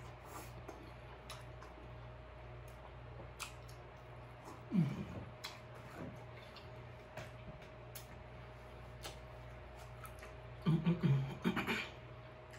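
Close-up chewing of king crab meat, with wet lip-smacking clicks. A short "mmm" moan falling in pitch comes about five seconds in, and a few more moans near the end, over a faint steady hum.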